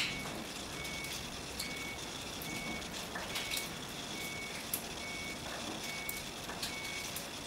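A vehicle's reversing alarm beeps steadily, a single high tone repeating a little more than once a second, over a steady hiss. Scattered sharp clicks and taps sound through it, the loudest one right at the start.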